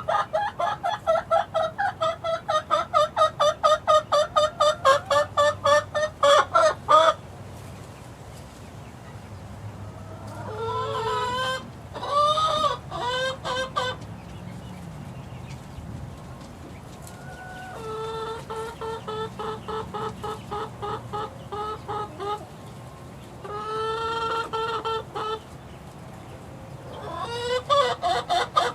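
Chickens clucking in rapid pulsed runs of about four or five calls a second: one long run over the first seven seconds, then several shorter bursts with gaps between them.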